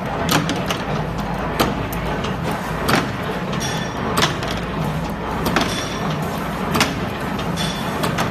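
Automatic cotter pin making machine running: a steady low hum under a sharp metallic clack about every second and a quarter, with lighter clicks between, as its crank-driven slides cut and bend steel wire into split pins.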